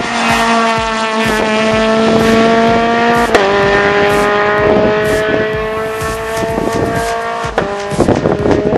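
Rally car engine at full throttle, its note climbing steadily through the gears, with two quick upshifts where the pitch drops sharply: one about a third of the way in and one near the end.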